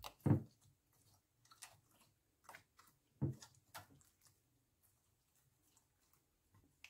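Clear glitter slime being squeezed and kneaded by hand against a glass baking dish: irregular sticky clicks and squishes. The loudest come about a third of a second in and a little after three seconds in.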